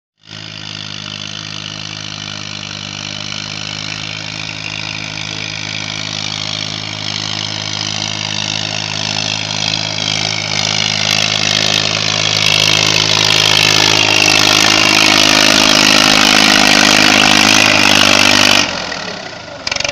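TAFE 45 DI four-wheel-drive tractor's diesel engine running at a steady speed, growing steadily louder until it drops away sharply near the end.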